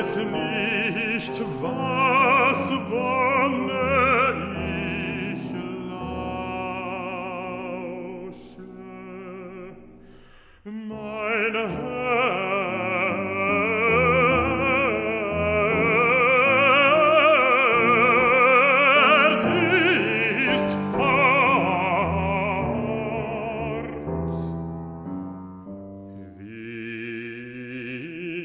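Baritone singing a classical art song with wide vibrato, accompanied by piano. The music thins out briefly about ten seconds in, then the voice holds long sustained phrases that soften near the end.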